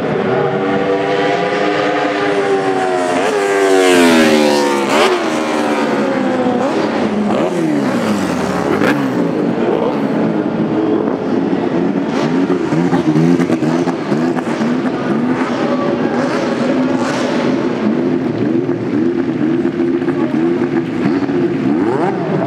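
McLaren Honda MP4/4's turbocharged V6 race engine running. Its pitch sweeps up and then drops as it passes about four seconds in and falls away again a few seconds later. From about ten seconds in it runs at low, wavering revs.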